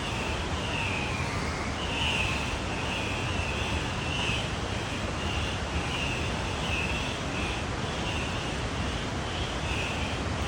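Andean cock-of-the-rock calling over and over, a string of short, harsh squawks about once a second, over a steady rushing background noise.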